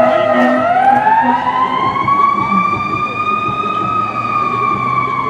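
Fire engine siren wailing: the pitch falls to its lowest about half a second in, climbs slowly for about three seconds, then starts to fall again.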